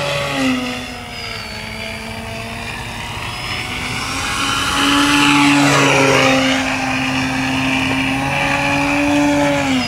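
Electric motor and propeller of a radio-controlled Fokker Eindecker scale model running in flight, a steady pitched hum. It grows louder around the middle as the plane comes closer, then eases slightly.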